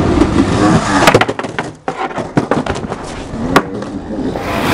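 Skateboard wheels rolling on concrete, with a cluster of sharp clacks and bangs about a second in and another single crack near the end: the board and the skater striking the ground during bails.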